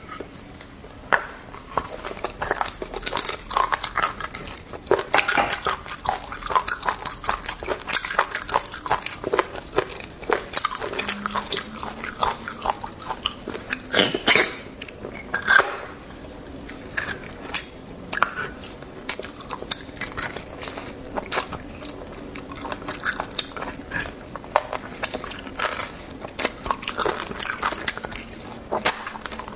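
Close-miked eating of bone marrow: wet chewing, biting and mouth smacks, many short irregular clicks.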